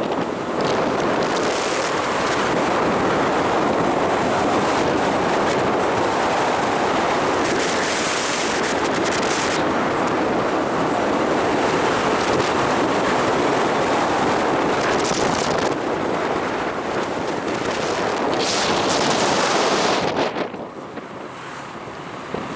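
Wind buffeting the microphone, a loud, steady rushing noise with gusts now and then, easing for a couple of seconds near the end.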